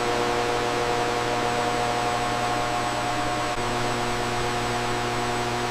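A steady hiss with a low hum and several steady tones underneath, cutting in suddenly at the start and holding even, with no rhythm or change.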